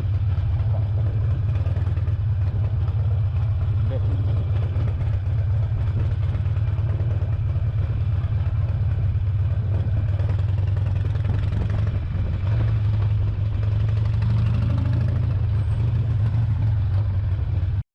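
Harley-Davidson Sportster 1200 V-twin engine running at low revs, a deep steady rumble that grows a little stronger about twelve seconds in, then cuts off suddenly near the end.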